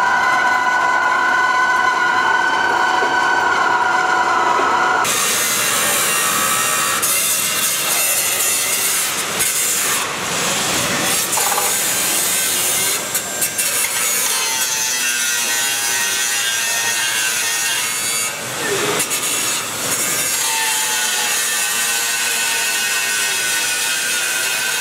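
For about five seconds, a steady machine whine of several held tones from a railway wheel lathe turning a locomotive wheel. Then hand-held angle grinders grind the steel of a locomotive body shell: a harsh, hissing rush whose pitch wavers up and down as the discs bite.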